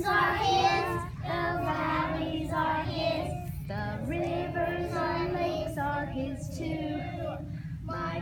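Young children singing a children's praise song together, in short phrases with held notes.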